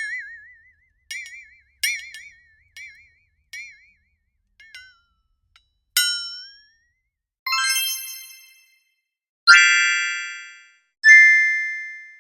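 A run of separate bell sound effects, each struck once and ringing out: short, bright rings with a wavering pitch in the first half, then from about nine seconds in a few louder, longer single strikes that ring and fade.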